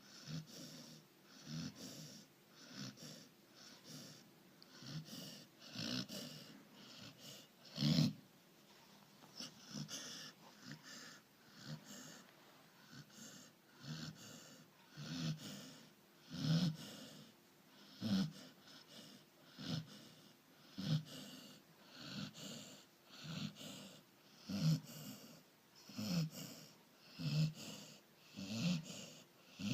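Labrador retriever snoring in its sleep, a wheezy snore roughly every one to one and a half seconds, with one much louder snore about eight seconds in.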